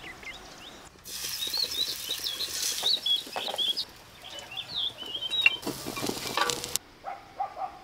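Food frying in a pan, a steady sizzle, with a wooden spatula stirring and a few sharp knocks against the pan. Small birds chirp throughout the middle stretch.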